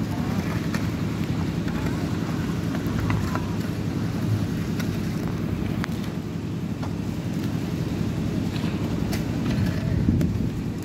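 Steady drone of a construction machine's engine running on a concrete-pouring site, with scattered short clinks and scrapes of shovels and hoes working the wet concrete.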